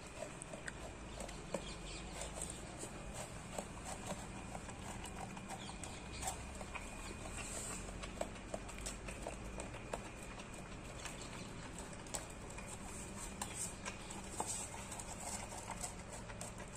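Rottweiler puppy licking ice cream out of a small paper cup on a tile floor: a faint, irregular run of wet licking clicks.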